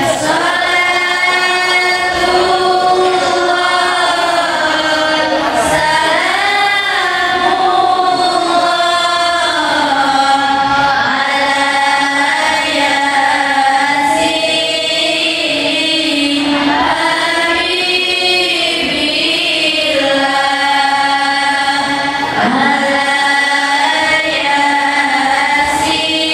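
Girls' voices singing sholawat together into microphones, long drawn-out notes that glide up and down in ornamented melodic lines.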